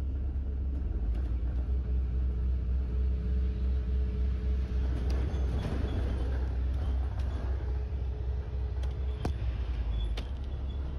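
A double-decker bus in motion, heard from its top deck: a steady low engine and road rumble with a mid-pitched whine that stops about nine seconds in. A few sharp clicks cut through it.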